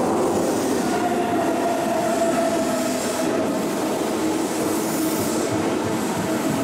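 Keihan electric train running along the platform: a steady, loud rumble of wheels and running gear, with a faint whine that falls slowly in pitch.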